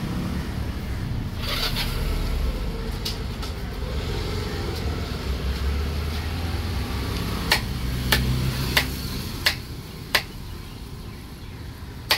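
Low rumble of passing road traffic, fading in the second half. From a little past halfway, a big knife chops through fish on a wooden table: five sharp knocks about two-thirds of a second apart, then one more near the end.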